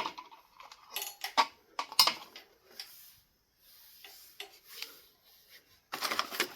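Small metal parts clinking and knocking at irregular intervals, about ten sharp clicks in all, then a brief scraping rustle about six seconds in.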